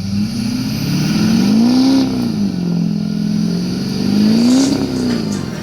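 Duramax 6.6-litre V8 turbodiesel in a 2007 truck being revved twice, the engine note climbing and falling back to idle each time.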